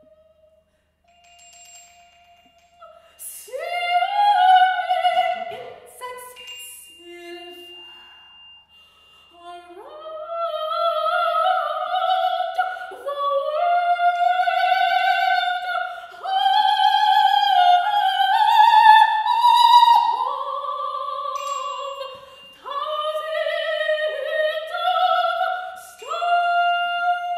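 Solo soprano voice singing a run of long-held high notes, each swooping up into its pitch, after a quiet start of about three seconds. A few short broken phrases come about four to nine seconds in.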